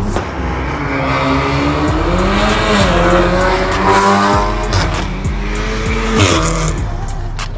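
A car driven hard, its engine or tyres giving a loud wavering pitch that rises and falls and drops sharply about six seconds in. Music plays underneath.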